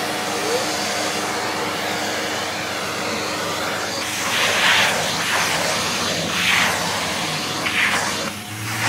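Vacuum cleaner running steadily while it is used to groom a cat's fur, its noise swelling louder in short bursts several times from about four seconds in.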